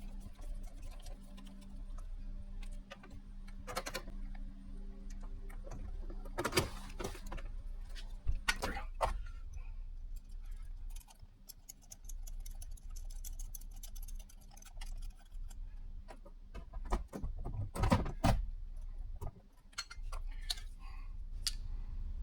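Scattered metallic clicks and knocks of keypad door-lock parts being handled and fitted, in small clusters, over a steady low hum.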